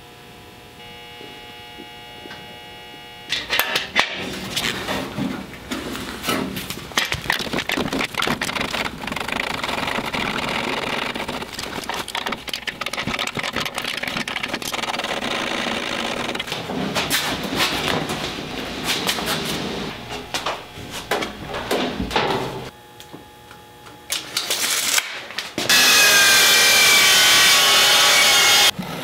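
Workshop work sounds: a steady hum at first, then a long stretch of clicking and scraping as metal and wood parts are handled and fitted. Near the end a miter saw cuts through a board, loud and steady for about three seconds.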